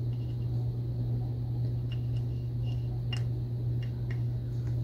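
A steady low hum with a few faint, light clicks of small metal spincast-reel parts being handled, the spinner head cup and pickup pin being worked.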